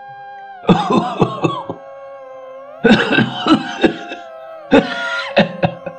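Coughing sound effect: a person coughs in three separate fits, over a steady background music drone.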